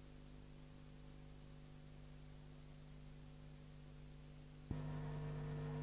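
Low, steady electrical hum with faint hiss, the background of an old videotape recording. A little before the end it jumps suddenly louder and the hum grows stronger.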